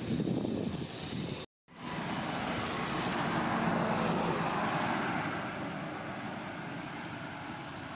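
Road traffic: a vehicle passing, swelling to its loudest a few seconds in and then slowly fading, with wind on the microphone. The sound cuts out completely for a moment about a second and a half in.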